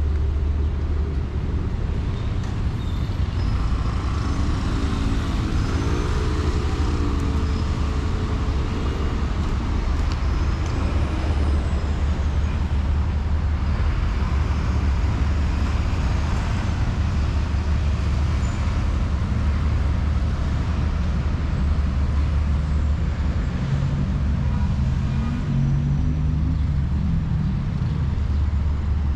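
Road traffic noise: a steady low rumble of passing cars and heavier vehicles, with a few brief wavering pitched sounds over it.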